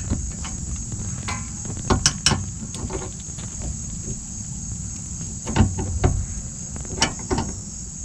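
Scattered sharp metallic clicks and knocks from channel-lock pliers working a subframe bushing support collar into place, over a steady high-pitched chorus of insects.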